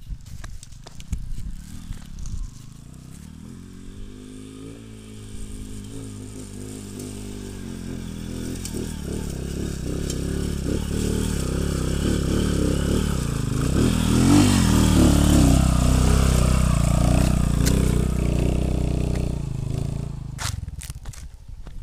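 Motorcycle engine pulling hard up a steep loose-dirt slope, revving higher as it climbs. It grows louder as the bike approaches, is loudest about two-thirds of the way through, then fades as it rides away.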